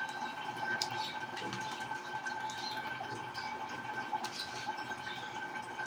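Fingertips rubbing charcoal-soap lather over facial skin, faint wet squishing and small scratchy clicks, over a steady background hum with a constant whine.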